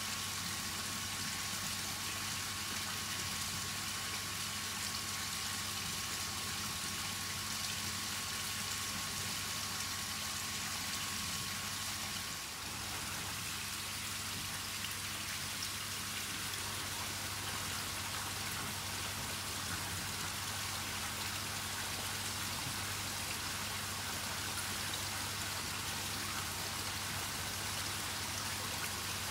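Steady splashing and hissing of running water, with a low hum underneath.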